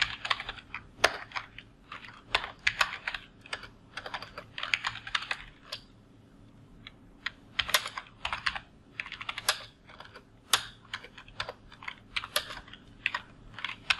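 Typing on a computer keyboard: irregular keystrokes in short runs, with a pause of about a second and a half near the middle.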